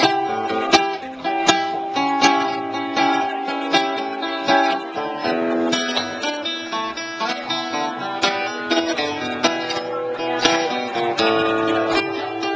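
Acoustic guitar picking a busy run of single notes over a plucked upright bass: an instrumental break between sung verses of a folk-rock song.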